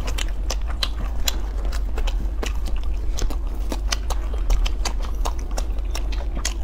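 Close-miked chewing of cheesy pizza: many sharp, irregular mouth clicks and smacks, over a steady low hum.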